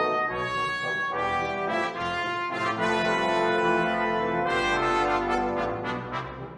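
Brass ensemble music played back by Finale notation software's sampled instruments: trumpets, French horns, trombones, baritone and tuba sounding sustained chords, growing softer near the end.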